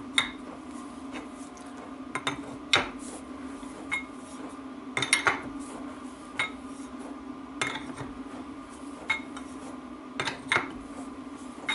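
Sharp metal clinks of a spanner on the nut of a threaded drawbar bearing puller, about one a second and irregular, as the nut is wound down stroke by stroke to pull a bearing outer race into a differential end plate. A steady low hum runs underneath.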